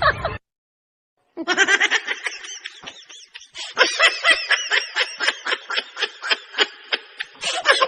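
High-pitched snickering laughter in quick, repeated giggles, starting after about a second of silence.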